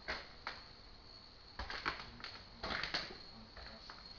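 Irregular short knocks and scuffs, a cluster every half second or so, the two loudest about halfway through, over a faint steady high whine.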